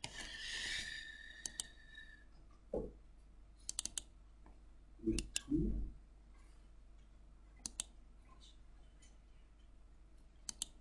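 Computer mouse clicking: quick pairs of clicks every couple of seconds, like double-clicks on an icon. A soft hiss runs through the first two seconds.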